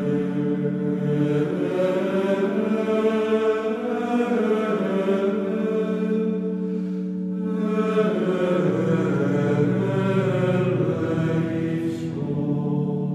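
Background music of slow vocal chanting, with long held notes that change pitch only occasionally; a lower note comes in about two-thirds of the way through.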